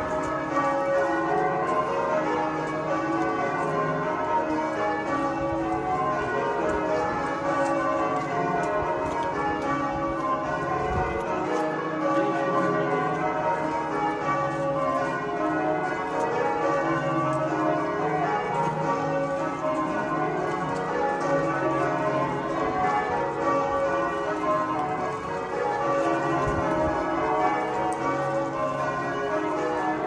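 Canterbury Cathedral's tower bells being rung in English change ringing: a continuous peal of many bells striking one after another in rapid, overlapping rounds.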